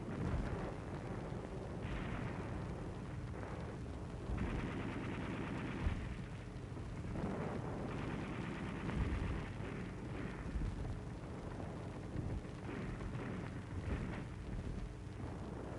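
Battle noise on an old film soundtrack: a continuous rumble with scattered thuds of distant gunfire and artillery over steady hiss and hum.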